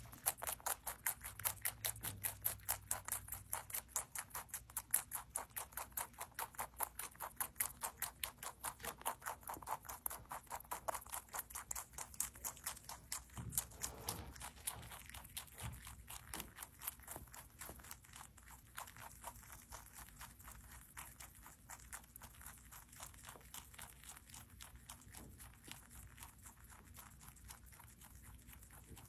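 Rabbit chewing crunchy food close to the microphone: a fast, regular run of small crunches, about three a second, louder in the first half and softer later.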